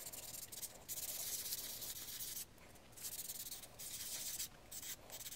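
A 3D-printed plastic knob being hand-sanded with a small piece of sandpaper: a faint, scratchy rubbing that comes in spells of about a second and a half with brief pauses between them.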